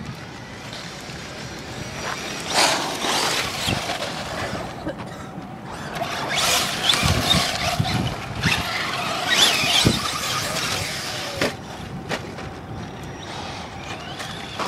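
Radio-controlled trucks driving, their motors whining up and down in pitch over a gritty noise, loudest about halfway through, with a few sharp knocks.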